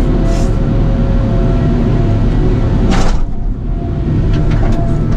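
Diesel engine and hydraulics of a timber-cutting logging machine running steadily under load, with a brief hiss about three seconds in.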